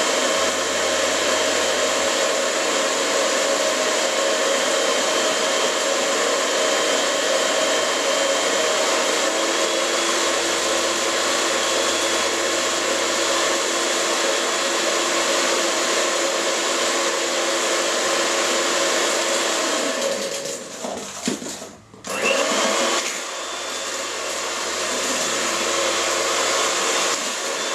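Electric mixer running steadily as it beats eggs, sugar and oil until fluffy. Its whir drops away briefly about three-quarters of the way through, then runs again a little quieter.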